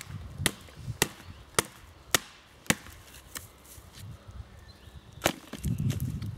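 A hand-held blade chopping into a wooden branch: six sharp chops about twice a second, a pause, then one more chop a little after five seconds.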